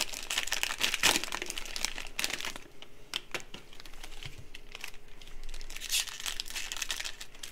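Plastic foil trading-card pack wrappers crinkling and tearing as packs are handled and ripped open by hand. The crackling is dense for the first couple of seconds, then thins to scattered crinkles, with another flurry about six seconds in.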